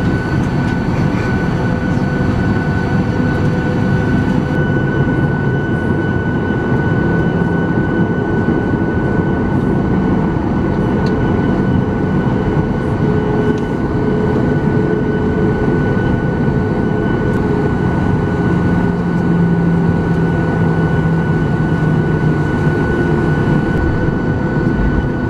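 Cabin noise of a Boeing 737-900ER taxiing, heard inside the cabin by the wing: the CFM56 engines at idle thrust with a steady high whine over a low drone that drifts slightly in pitch.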